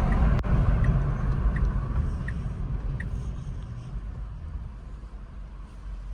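Wind and road rumble through a Tesla's open windows, fading steadily. A light tick repeats about every three-quarters of a second for the first three seconds, with one sharp click about half a second in.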